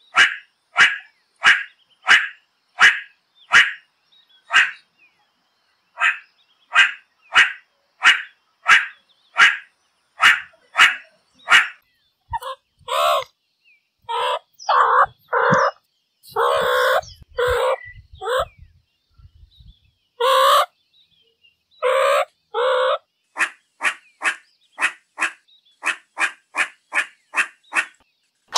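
Meerkat calls: a steady series of short calls, about one and a half a second, breaking into longer, harsher calls with gaps from about 12 s, then a quicker run of short calls, about two a second, near the end.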